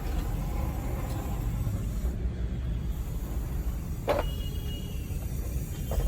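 A car's steady low rumble, with a sharp knock about four seconds in and a lighter one near the end.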